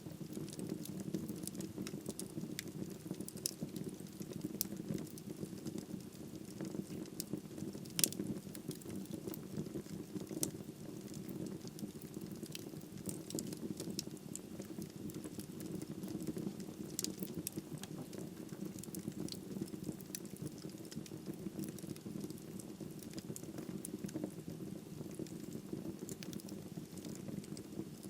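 Wood fire burning in a fireplace: a steady low rush of flames with frequent small crackles and pops of burning wood, and one sharper pop about eight seconds in.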